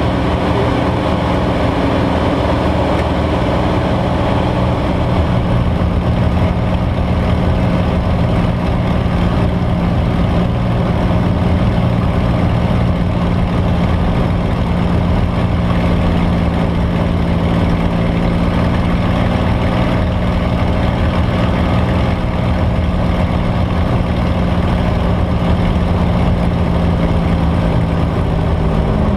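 Spitfire's Rolls-Royce Merlin V12 engine running steadily, heard from inside the cockpit as the aircraft descends to land. The note dips slightly right at the end.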